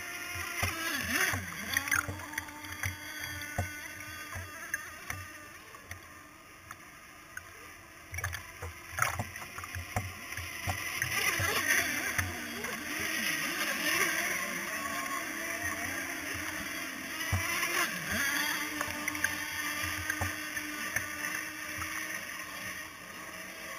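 Choppy water slapping and gurgling against the hull of a drifting radio-controlled offshore race boat, with irregular thumps. A fainter engine whine rises and falls behind it.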